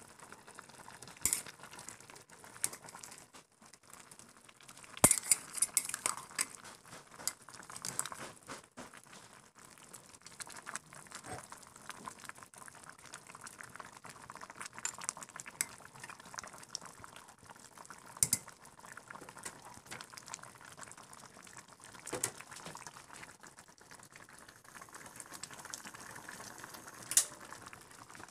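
Pork sinigang soup simmering in a stainless steel pot, a steady bubbling hiss, while a metal ladle stirs it and clinks against the pot now and then. The sharpest clink comes about five seconds in.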